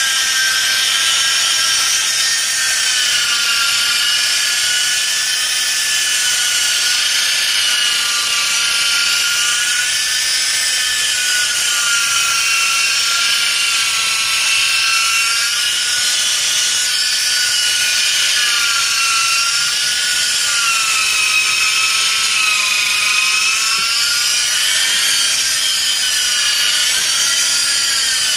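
Handheld electric polisher wet-sanding car windshield glass with a No. 7 sanding disc on a foam backing pad: a steady motor whine whose pitch wavers slightly up and down.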